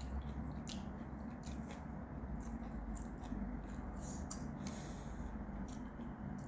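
Room tone: a steady low hum with scattered faint clicks and rustles.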